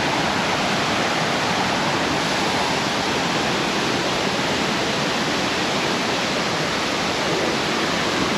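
Waterfall rushing steadily, a loud even roar of falling water swollen after rain.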